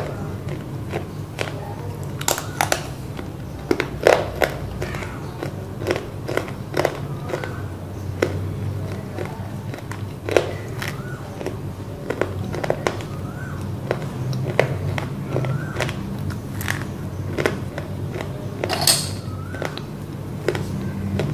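Close-up crunching and chewing of pieces of roasted black clay (multani mitti, fuller's earth), a run of irregular crisp cracks as the pieces break between the teeth, over a low steady hum. One sharper crack comes near the end.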